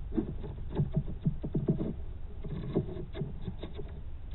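Teslong NTS500 endoscope probe scraping and knocking against wood as it is pushed down through a drilled hole into a wall cavity: a run of irregular short scrapes over a steady low hum. It is picked up by the scope's own built-in microphone and sounds dull, with no highs.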